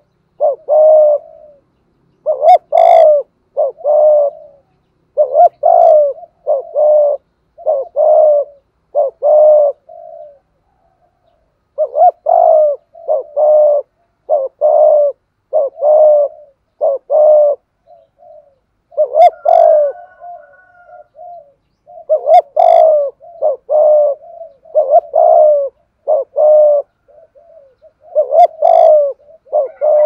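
Spotted dove cooing loudly, close up, in long runs of short repeated coos about one a second: the 'thúc gù' display coo that dove keepers breed for. The runs break off once, for about two seconds, roughly a third of the way through.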